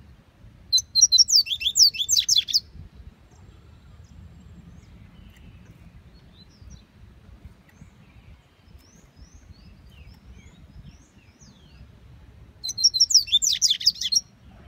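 A caged coleiro, a Sporophila seedeater, singing two loud phrases of rapid, high notes. Each phrase lasts about two seconds: the first comes about a second in, the second near the end.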